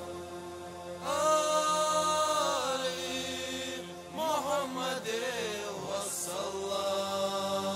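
Music with a solo voice singing a chant: long held notes, then a wavering, ornamented melody over a steady drone.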